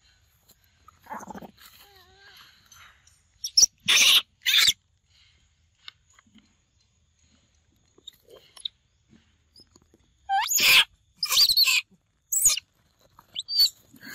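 Young macaques screeching in short, loud, high-pitched bursts: two or three close together about four seconds in, then a run of three or four more from about ten seconds on, with near quiet between.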